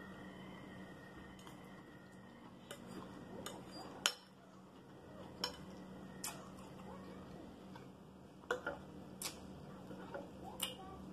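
Metal fork clinking and scraping against a ceramic salad bowl as salad is speared, in sharp separate clicks every second or so. The loudest click comes about four seconds in.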